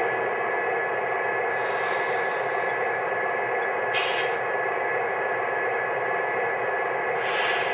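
Lionel O-gauge F3 diesel locomotive set running on the track: a steady mechanical running and rolling noise with a thin steady whine under it. Short hissing bursts come about two, four and seven and a half seconds in.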